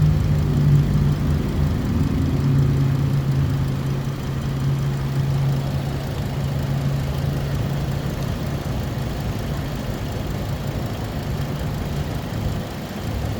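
A vehicle engine running steadily, a low hum that slowly fades over the first several seconds.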